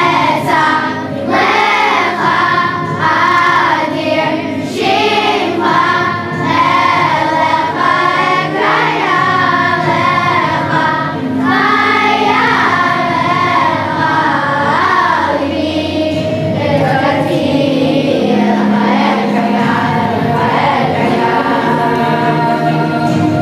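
A children's choir singing in unison over musical accompaniment.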